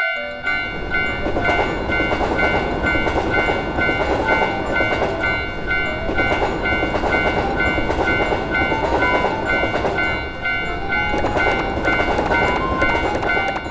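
Train passing: a steady, loud rumble of wheels on rails with sustained high tones over it.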